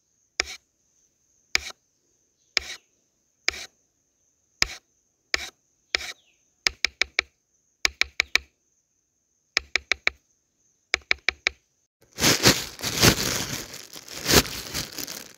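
Knife chopping vegetables on a cutting board: single cuts about once a second, then quick runs of three to five chops. About twelve seconds in, a few seconds of denser, continuous chopping noise follow.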